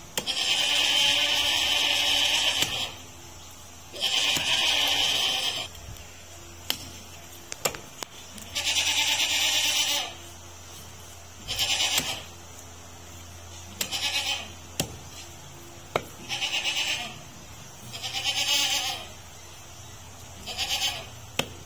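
A goat bleating over and over, about eight calls of half a second to two seconds each, every two to three seconds. A few sharp taps come between the calls.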